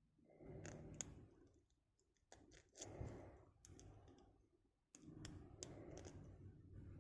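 Faint, irregular clicks and scrapes of a lock pick and tension wrench working the pins inside a 40mm aluminium Kasp padlock.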